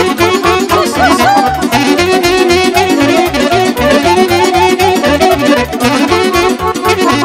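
Live party band playing an instrumental break of a Romanian folk dance song loudly over PA speakers: a wind-instrument lead melody over keyboard and a steady dance beat.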